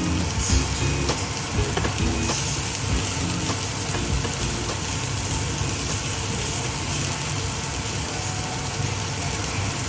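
Sliced bitter melon frying in a pan with a steady sizzle, with a few light clinks of stirring in the first couple of seconds.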